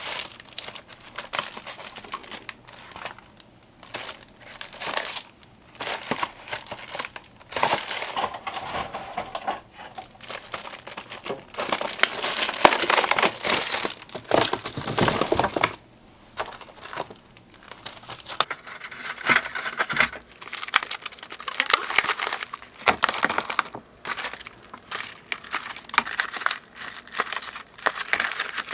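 Plastic packaging of false-eyelash packs and trays crinkling and rustling as they are handled and sorted, in irregular bursts.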